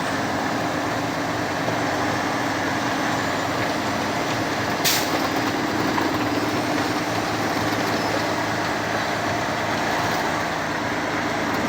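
Truck running with a steady engine drone and road noise. A single short, sharp sound cuts through about five seconds in.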